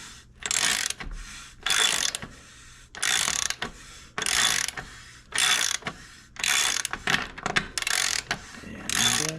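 Socket ratchet wrench clicking in repeated strokes, about one a second, as it unscrews the drive-side cup of a square-taper bottom bracket.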